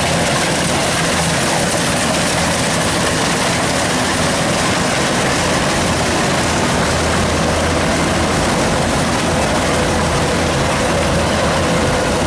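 Kubota DC93 rice combine harvester running steadily: a constant low engine hum under a dense, even mechanical noise, with no change in level.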